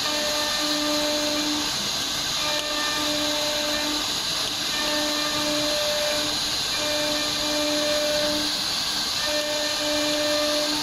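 1325 wood CNC router carving a board: the high-speed spindle and bit cutting with a steady, loud high hiss, over a pitched hum that starts and stops every second or so as the head moves along the carving path.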